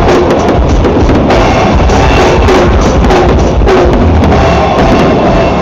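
Loud music with a drum beat, overlaid by the bangs and crackling of a fireworks display.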